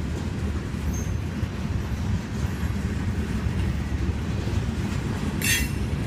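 Freight train of covered hopper cars rolling past at close range, a steady low rumble of wheels on rail. A brief high-pitched squeal cuts in about five and a half seconds in.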